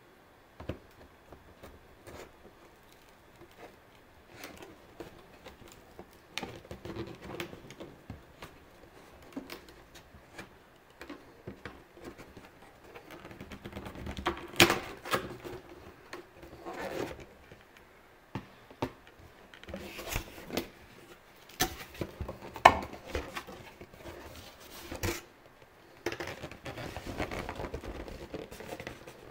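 Close handling of small scissors and a paper card: scattered clicks, snips and paper rustles, sparse at first and busier from about halfway. Near the end comes the rustle of a cardboard box being opened and handled.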